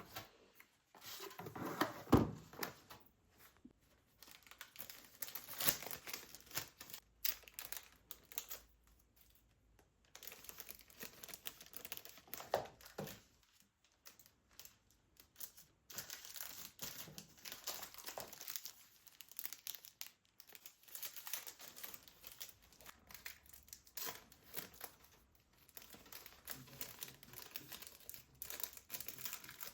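Packaging being handled by hand, crinkling and tearing in irregular bursts with short pauses, loudest about two seconds in.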